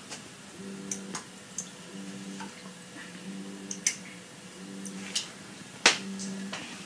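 Jebao WP-40 aquarium wavemaker pump running in pulse mode: a low hum that surges on and off about every second and a quarter, each burst lasting about half a second. Sharp ticks and clicks come in between, the loudest near the end.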